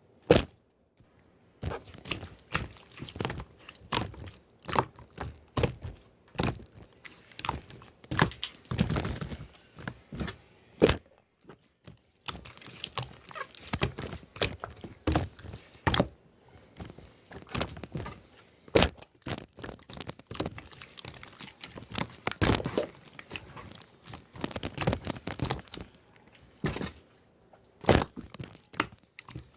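Slime being squished and pressed by hand, giving irregular sticky clicks and pops, several a second in busy stretches, with a few brief pauses.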